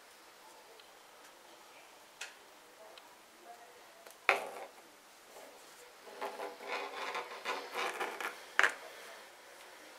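Metal circular knitting needles clicking and tapping as stitches are worked, with a sharp tap about four seconds in, a run of quick small clicks and yarn rustle in the second half, and another sharp tap near the end.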